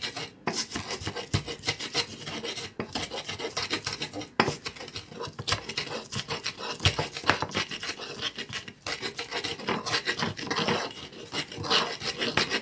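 Garlic and ginger being ground by scraping a metal utensil back and forth across an earthenware grinding dish: a quick, continuous run of gritty scraping strokes.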